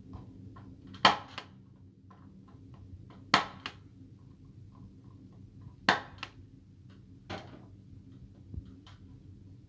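Spring-loaded punch-down tool snapping as it seats and trims wires into a Cat 6 patch panel's terminals: four sharp snaps a couple of seconds apart, each followed by a lighter click, with small handling ticks between.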